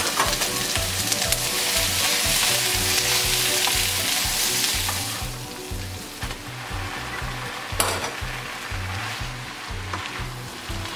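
Shrimp and onions sizzling hard in a hot nonstick frying pan. About five seconds in, the sizzle dies down as a bowl of fresh noodles is tipped into the pan, and there is a single sharp knock near the eight-second mark.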